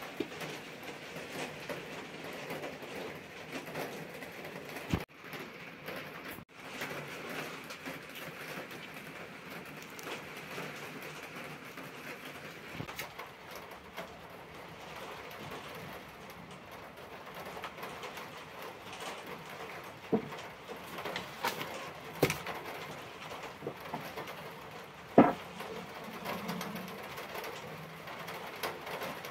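A wooden rolling pin knocking sharply on the table a few times, the loudest knock near the end, as sopaipilla dough is rolled out. Under the knocks runs a steady background hiss.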